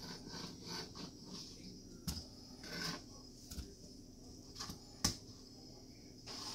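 Kitchen knife cutting through pineapple and knocking on a plastic cutting board: irregular knocks and clicks, the loudest about two seconds in and again about five seconds in.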